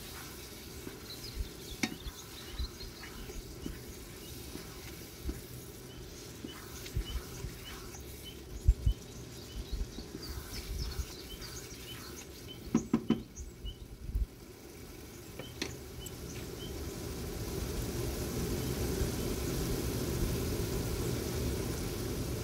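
Zucchini curry sizzling and crackling in a frying pan while a wooden spatula stirs it and knocks and scrapes against the pan, loudest in a short cluster of knocks about halfway through. The frying gets louder over the last few seconds.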